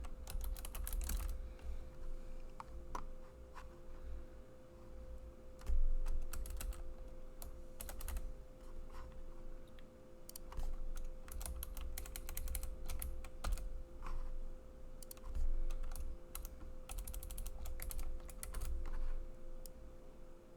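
Typing on a computer keyboard in irregular bursts of keystrokes with short pauses between them, over a steady faint hum.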